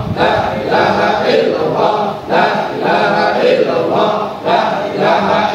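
A congregation of many voices chanting together in an Islamic devotional chant (dhikr), in phrases about a second long, carried over the hall's loudspeakers.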